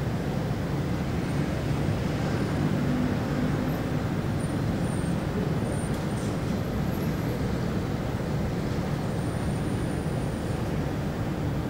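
City traffic ambience: a steady low rumble of vehicles going by, with a few faint, brief high tones over it.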